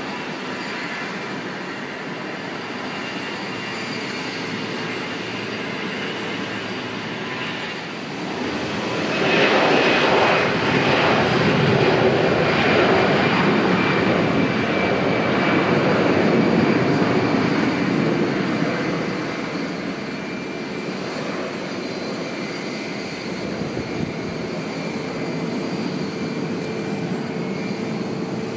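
Airliner engines: a steady hum with a faint whine, swelling to a loud rush about nine seconds in and easing off again after about ten seconds.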